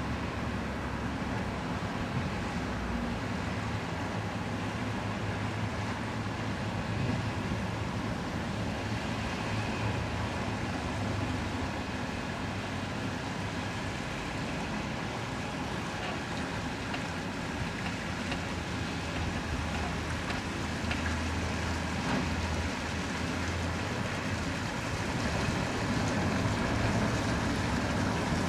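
Kromhout 3LSD engine of a small workboat running steadily under way, heard across open water with some wind on the microphone; its low, even beat grows a little louder near the end as the boat comes closer.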